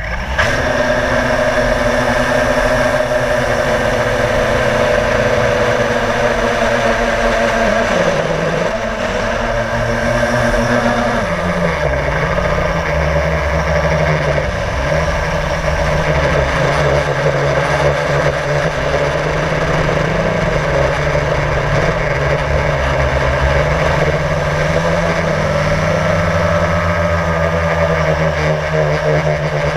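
Blade drone's electric motors and propellers whirring, recorded by the GoPro on board. The hum starts suddenly as the drone lifts off, wavers and drops in pitch about 8 to 12 seconds in, then runs steadily at the lower pitch with small wobbles.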